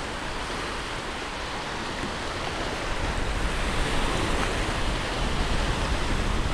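Small waves washing and breaking on a shallow shore, with wind rumbling on the microphone. It gets a little louder about halfway through.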